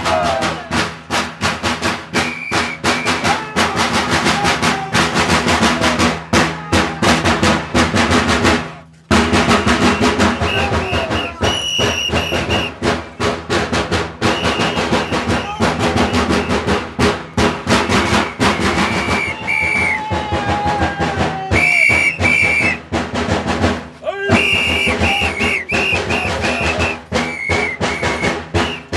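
Fast, continuous drumming in rolls, the drum accompaniment of a Romanian bear-costume dance, with short high shrill notes sounding over it now and then. It breaks off for a moment about nine seconds in and again near the end.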